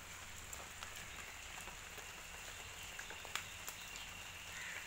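Light rain falling on garden plants and wet soil: a soft even patter with scattered drop ticks. A faint steady high tone runs under it.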